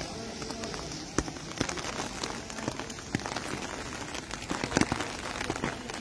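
Heavy rain falling on standing floodwater: a steady hiss of rain, with many sharp, irregular clicks of single drops striking close by.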